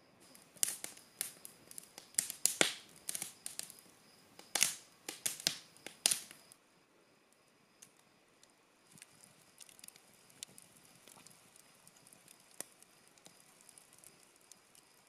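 Campfire of burning wood crackling and popping: a dense run of sharp, loud pops in the first six seconds, then sparser, quieter crackles.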